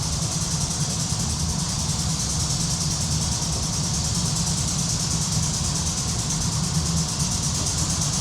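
Steady low machine hum with a hiss over it, unchanging throughout, like an engine or motor idling.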